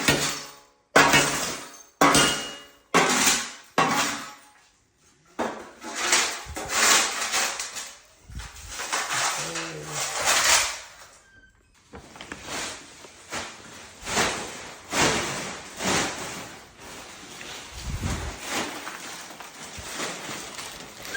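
Ceramic floor tile being broken up and torn out during demolition. First comes a run of hard strikes about once a second, then irregular cracking and clattering of tile pieces.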